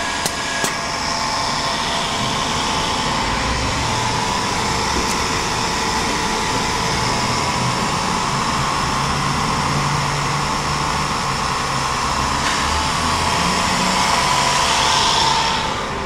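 Steady whirring machine noise, a little louder near the end.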